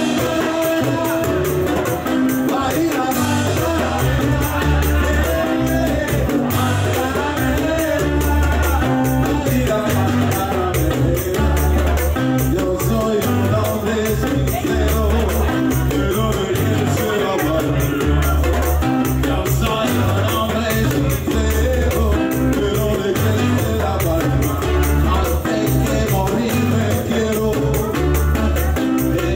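Live band playing: strummed acoustic guitar, electric bass and drums, with a steady pulsing bass line.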